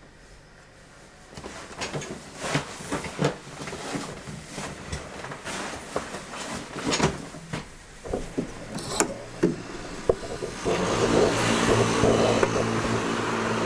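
A run of irregular sharp knocks and taps. Then, from about eleven seconds in, steady outdoor traffic noise with a vehicle engine's low hum, the loudest part.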